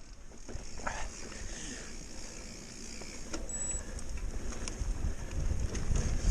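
Steady low rumble of wind and rolling noise on a camera carried on a moving mountain bike, with a few faint clicks and rattles.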